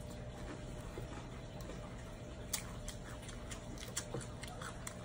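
A fork clicking and scraping on a plate of salad while eating: small, scattered ticks, the sharpest about halfway through.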